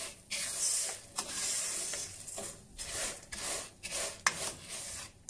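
Dry fideo noodles stirred with a plastic spoon in a lightly oiled pan, rasping and rustling against the pan in irregular strokes as they are coated in oil before toasting.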